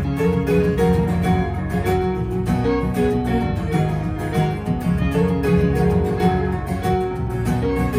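Live acoustic band playing an instrumental passage with no singing: strummed acoustic guitar, bowed fiddle and keyboard.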